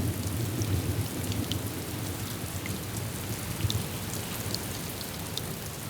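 Steady rain falling on hard surfaces, with scattered individual drops ticking and splashing.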